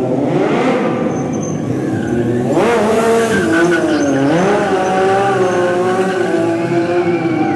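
Motorcycle engine revving under a stunt rider's throttle during a wheelie: the pitch climbs sharply about two and a half seconds in, dips around four seconds, then holds fairly steady.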